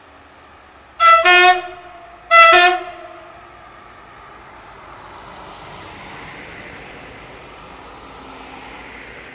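X 73500 diesel railcar sounding its horn twice in short blasts about a second apart, the first one briefly broken, as it departs. Its diesel engine and wheels then grow louder as it runs past close by.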